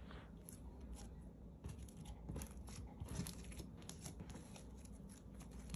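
Thick white-glue slime stretched and pulled apart by hand, giving faint scattered crackles and small pops as it tears and air is worked into it to make it fluffy.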